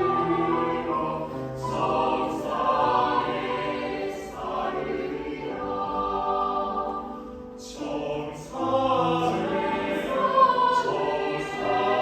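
Choir singing in sustained chords, with sung consonants heard and a short break in the sound about seven and a half seconds in.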